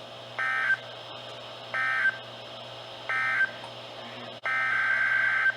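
Emergency Alert System SAME data bursts, a warbling digital modem screech. There are three short end-of-message bursts about 1.4 s apart, then a longer burst about 4.5 s in that begins the header of the next warning.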